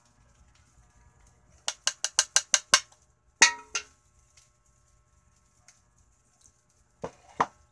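Cookware clatter: a quick run of about seven sharp taps, then a single louder clang that rings briefly, and two more knocks near the end.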